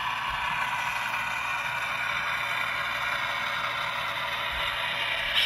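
Model freight cars rolling past on model railroad track: a steady whirring rattle of wheels on rail.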